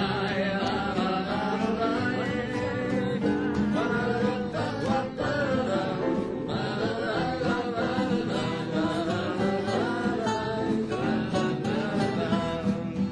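Song with acoustic guitar accompaniment and singing, played between sung verses.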